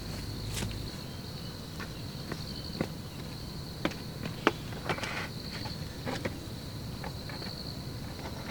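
Insect, likely a cricket, trilling steadily at a high pitch, swelling and fading, over a low background hiss. A handful of sharp taps fall in the middle stretch.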